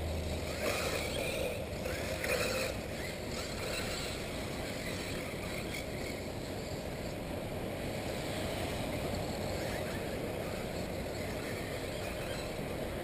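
Electric 1/8-scale RC off-road buggies running on the track, a steady whir of motors and tyres, with a few brief chirps in the first couple of seconds.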